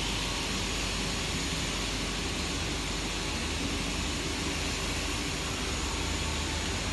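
Martin Group continuous fusing press running, with its conveyor belt moving: a steady hiss over a low hum.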